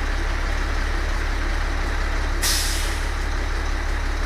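1999 Amtran school bus's diesel engine idling with a steady low drone; about two and a half seconds in, a short hiss of released air from the bus's air brake system cuts in and fades.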